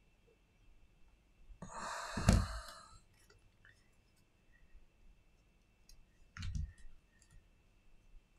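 Handling sounds of a Redmi Note 9 Pro on a silicone repair mat: a brief rustle with a sharp knock about two seconds in as the phone body is set down, then a softer knock with small clicks near the end as the back cover is laid on and pressed into place. Faint scattered clicks in between.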